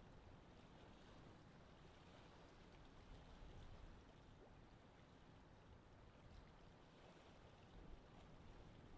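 Near silence: a faint, steady background hiss with a low rumble.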